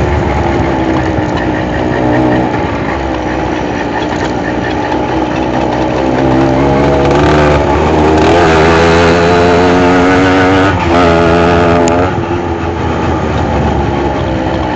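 Tomos two-stroke moped engine running while riding. The revs climb about halfway through and hold high, dip briefly, pick up again, then drop back near the end.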